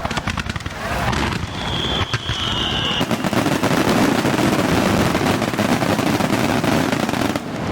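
Fireworks crackling in dense, rapid pops like firecrackers. A short, slightly falling whistle comes in about a second and a half in. About three seconds in it gives way to a louder, thicker wash of crackling.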